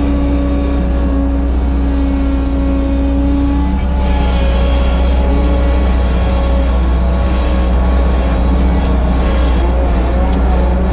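Bobcat 743 skid-steer loader running and working, its steady low engine drone carrying a whine whose pitch shifts about four seconds in.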